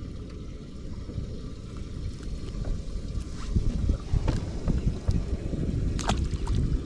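Wind rumbling on the microphone in an open boat, getting louder about three seconds in, with a few sharp clicks and knocks.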